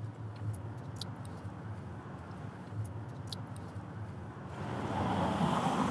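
City street traffic: a steady low hum with a few faint clicks, then a vehicle approaching and growing louder over the last second and a half.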